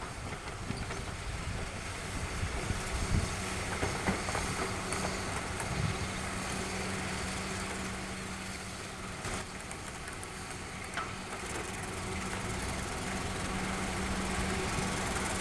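KAI CC 206 diesel-electric locomotive running with a steady engine hum as it hauls a loaded coal hopper train, over a rumble of train noise, growing somewhat louder near the end as it comes closer.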